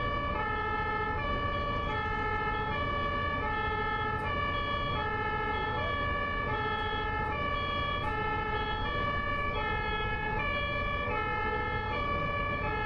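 German ambulance two-tone siren (Martinshorn) sounding continuously, alternating evenly between a high and a low note about every half second, over a steady low rumble.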